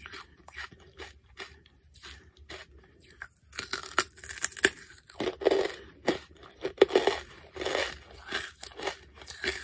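Charcoal being bitten and chewed in the mouth. There are soft mouth clicks at first, then from about three and a half seconds in a fresh piece is bitten and gives a rapid run of loud, crisp crunches.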